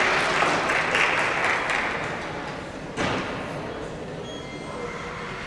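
Audience applause dying away over the first couple of seconds. About three seconds in there is a single sharp thud with a short echo, followed by quiet rink background.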